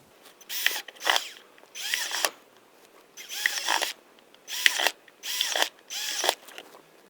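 Power drill run in about seven short trigger bursts of roughly half a second each, its motor pitch rising and falling with every burst, while making holes in a thin plastic sheet.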